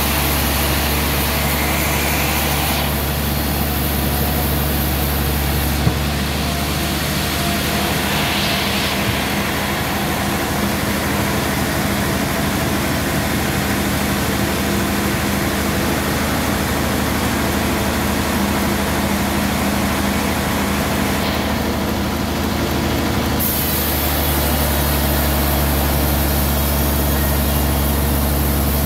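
Homemade band sawmill running steadily, its blade sawing lengthwise through a large suar (rain tree) log, a continuous low mechanical drone. A single sharp knock about six seconds in.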